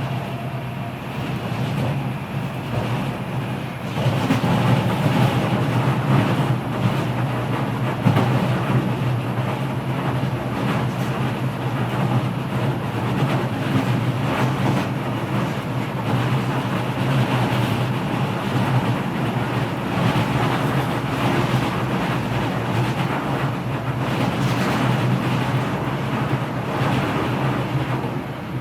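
Kita-Osaka Kyuko 9000 series subway car running at speed, heard through the floor right above a motor inspection hatch: steady wheel-on-rail rolling noise and the hum of the Toshiba permanent-magnet synchronous motors, with scattered clicks from the track. It gets louder about four seconds in and stays there.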